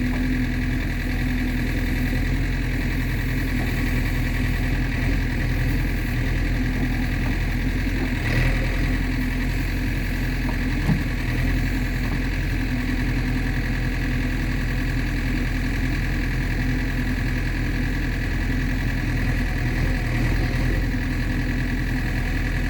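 Diesel engine of heavy earth-moving machinery running steadily at idle, with a faint single click about halfway through.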